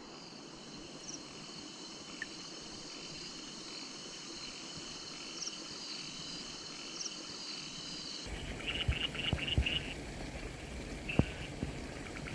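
Night chorus of insects in a rain-soaked paddy field, a steady high-pitched trilling. About eight seconds in it changes to short bursts of rapid pulsed chirps, with a few sharp knocks.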